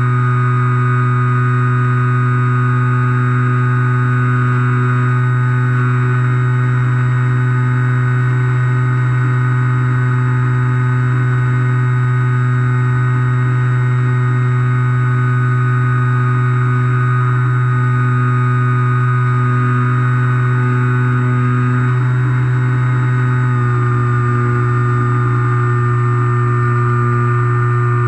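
Skywalker FPV model plane's brushless electric motor and pusher propeller running at a steady cruise throttle, heard from the plane's own onboard camera: a loud, steady droning note with higher whining tones above it. The note shifts slightly a little over 23 seconds in, as the throttle setting changes.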